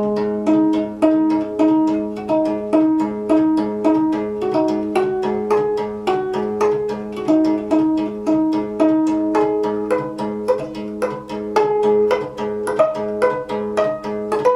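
Gayageum (Korean plucked zither) playing a quick, even run of plucked notes, several a second, over a sustained low ringing note.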